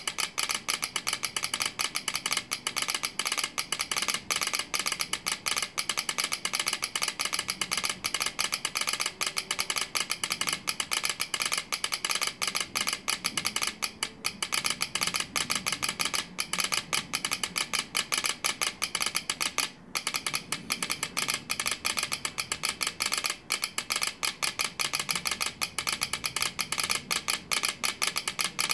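Telegraph key and sounder clicking in rapid, irregular Morse patterns, with a few short pauses between groups: a railway delay telegram being sent by hand.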